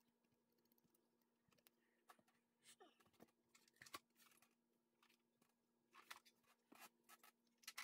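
Near silence: faint scattered clicks and light scrapes of small items being handled on a workbench, over a faint steady hum.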